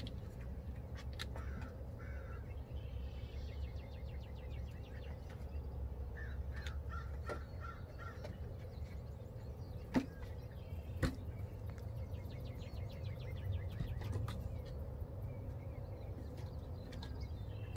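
Outdoor ambience of birds calling on and off over a steady low rumble, with two sharp knocks about ten and eleven seconds in.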